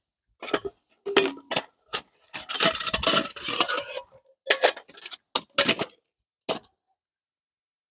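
Camp tableware being handled: a run of short clinks and clatters, thickest in the middle, stopping about six and a half seconds in.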